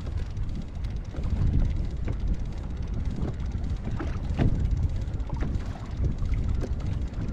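Strong wind buffeting the microphone over water sloshing against a kayak, with a few short knocks and splashes.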